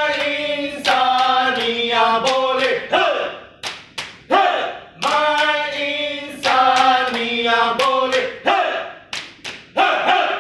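Three men singing a rousing Malay cheer song together, with a few sharp hand claps between phrases, around four seconds in and again near the end.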